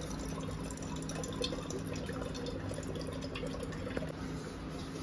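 Water running from a wall-mounted water purifier's push-lever tap into a bottle, over a steady low hum.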